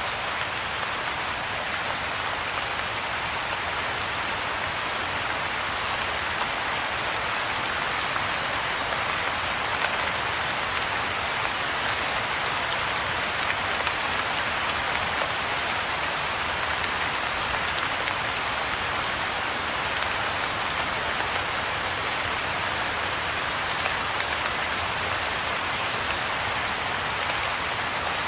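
Steady rain falling on a pond's surface, an even hiss of many small drops with no let-up.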